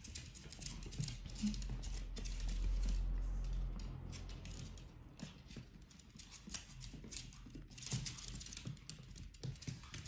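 Quick, light clicks and scratches of a five-week-old Pomeranian puppy's claws on a wooden floor as it scrambles at and gnaws a socked foot. A low rumble comes in about two to four seconds in.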